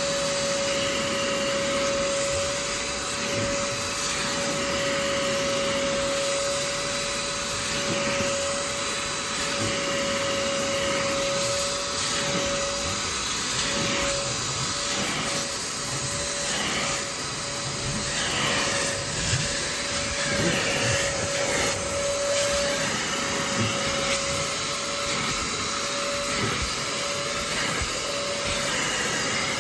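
Kiwi upholstery-washing machine (a spray-extraction vacuum) running, its suction motor giving a steady whine over a rushing noise. In the second half the sound wavers and the whine briefly dips several times.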